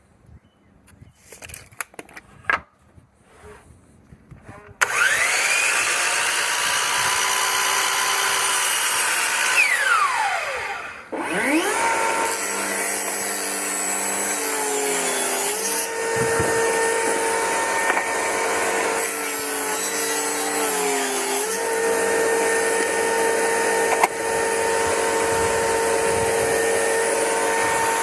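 Electric saw ripping wood strips for shelf cleats. After a few light knocks of handling, the saw starts about five seconds in and winds up to speed, then spins down and is started again. It then runs steadily, its pitch dipping briefly twice as the blade takes the cut.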